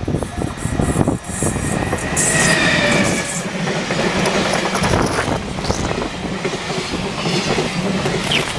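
A train passing close by. Fast clickety-clack of its wheels over rail joints comes first, then a continuous loud rushing of wheels on rail with a few thin, high, wavering squeals.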